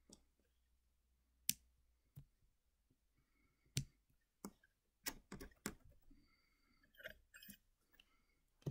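Faint, sharp clicks of a pair of scissors being handled and snipping cotton yarn: a few single clicks, then quicker runs of clicks in the second half.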